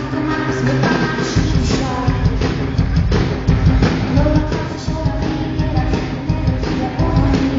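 Live rock band playing, with electric guitar, bass, drums and singing. The drums and bass come in fully about a second and a half in.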